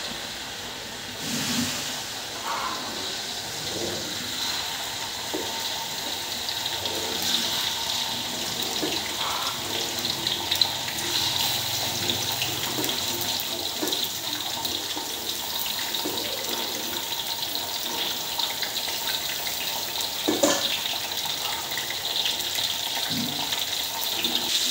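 Indian mackerel frying in hot oil in an aluminium wok: a steady hissing sizzle that grows louder as more fish go in, with a couple of sharp spits from the oil.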